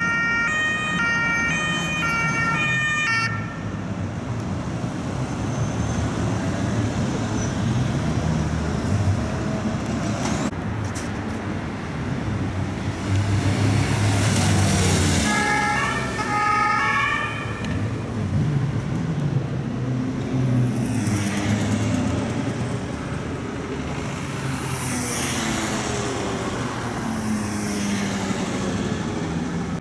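Police motorcycles riding through city traffic with a two-tone siren: the alternating two-note siren sounds for the first few seconds and again about halfway through, over steady engine and traffic noise. Later the engines rise and fall in pitch as the motorcycles pass.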